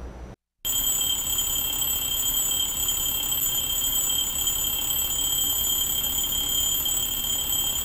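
Alarm clock ringing: a continuous high-pitched ring that starts suddenly about half a second in and goes on without a break.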